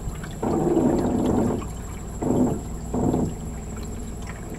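Water sloshing and gurgling against a small boat moving through a narrow swamp channel, in three surges, one long and two short.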